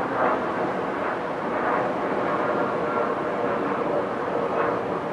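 Boeing 929 Jetfoil's gas turbines running steadily: an even jet-like rush with a faint whine.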